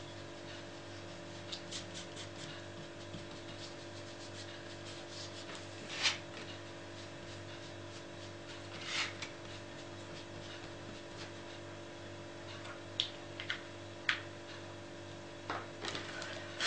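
A small pad rubbed across a sheet of card: a couple of brief scratchy strokes about six and nine seconds in, then several light taps and clicks near the end, over a steady low hum.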